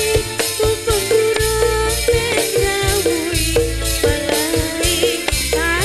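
Music playing: a wavering melody line over a regular percussion beat and a steady bass.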